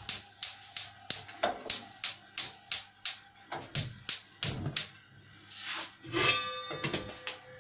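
Gas cooker's spark igniter clicking rapidly, about three clicks a second, until the burner lights. Near the end the aluminium pot lid rings briefly as it is handled.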